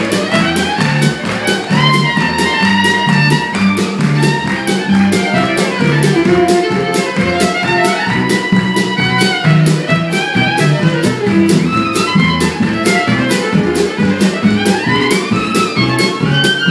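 Acoustic string band playing an uptempo instrumental passage, a fiddle running a quick melody over a steady beat and bass.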